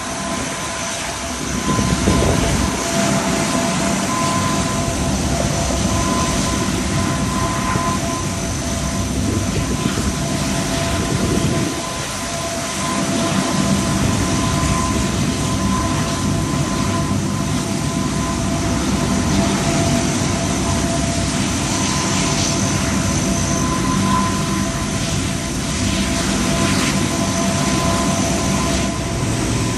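Four Allison T56 turboprop engines of a P-3K2 Orion running as the aircraft taxis, a steady propeller drone with a steady high whine over it.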